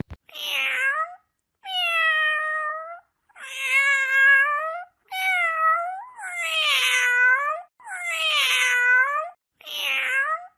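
Domestic cat meowing over and over: about seven drawn-out meows, each a second or so long, with short pauses between them.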